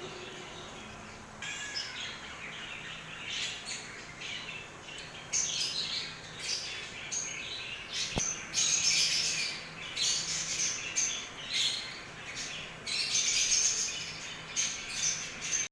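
Small birds chirping and tweeting in short, quick high calls, sparse at first and busier from about five seconds in.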